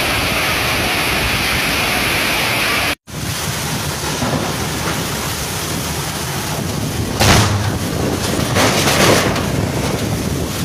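Heavy rain pouring down in a storm, a steady hiss; after a sudden cut about three seconds in, rain with strong wind gusts buffeting the microphone, loudest about seven and nine seconds in.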